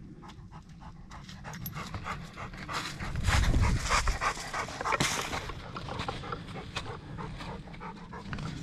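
A dog panting, loudest for a couple of seconds near the middle, over irregular crunching footsteps in snow.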